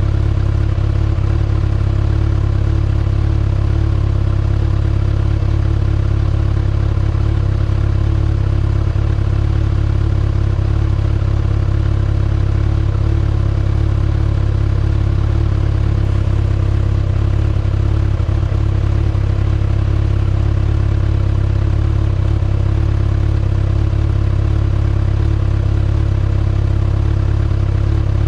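2019 Kawasaki ZX-6R's 636 cc inline-four engine running at a steady, unchanging speed through its stock exhaust.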